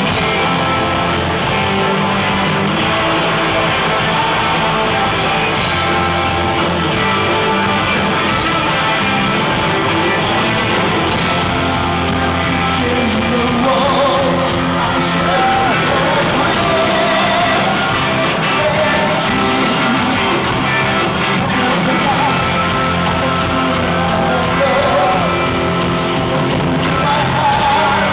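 Live rock band playing at full volume, with electric guitars and drums, recorded from the balcony of a large hall; lead vocals come in about halfway through.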